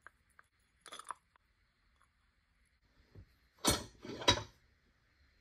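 Metal parts clinking and knocking as they are handled: a light click about a second in, then two louder metallic clanks about half a second apart past the middle.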